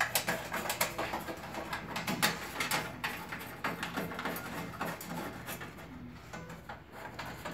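Handling noise: a string of light, irregular clicks and taps with some rubbing as a hand works at the bottom of the machine's metal rear panel among its cables.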